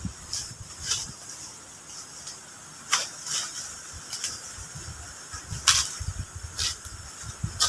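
Irregular crunches and crackles of footsteps on dry leaf litter and twigs in forest undergrowth, roughly one every second.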